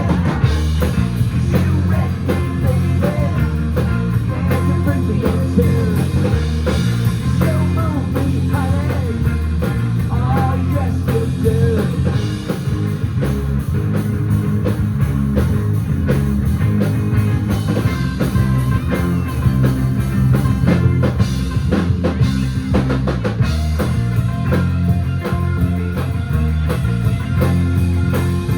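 Live rock band playing, with electric guitars, bass and drum kit.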